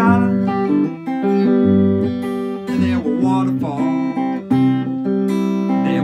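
Acoustic guitar strummed and picked, with a neck-rack harmonica playing held notes that bend in pitch about halfway through.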